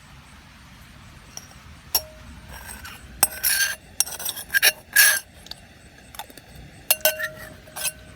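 A run of irregular clinks and knocks of hard objects, several leaving a short ringing tone, starting about two seconds in and bunching between about three and five seconds.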